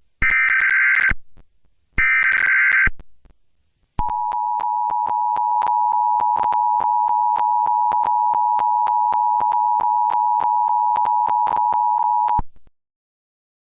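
Emergency Alert System tones: two one-second bursts of the SAME header's data tones, then, after a short gap, the steady two-tone EAS attention signal held for about eight seconds, with many clicks through it, before it cuts off near the end.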